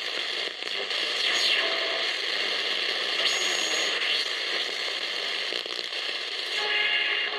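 Static and hiss from the loudspeaker of a 1967 Videoton Camping de Luxe radio as its tuning knob is turned between stations, with a few faint short whistles sliding through the noise.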